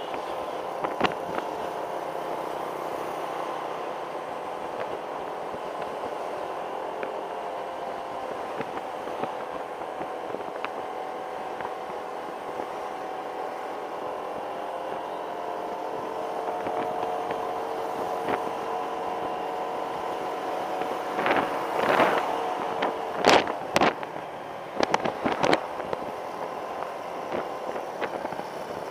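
Motor scooter's engine running steadily at cruising speed, heard from the rider's seat with road and wind noise. A cluster of sharp knocks comes a few seconds before the end.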